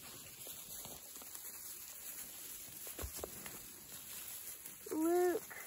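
Puppies and a person shuffling through dry grass and leaves, with one thump about three seconds in. Near the end comes one short voiced call, rising then falling in pitch, the loudest sound.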